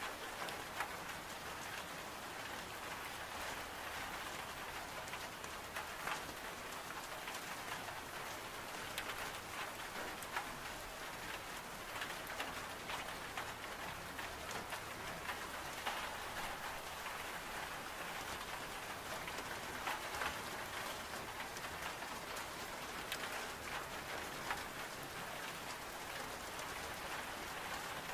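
Steady heavy rain on glass, a continuous hiss dotted with many small sharp ticks and pops from a crackling wood stove fire.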